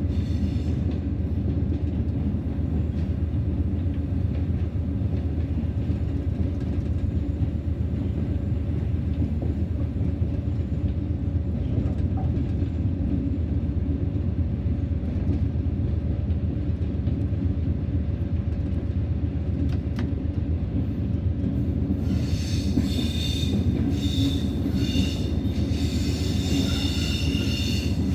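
BB 60000 diesel-hydraulic locomotive running steadily under way, its engine a constant low drone heard from the cab. Near the end, high-pitched wheel squeal comes and goes as the locomotive takes a curve.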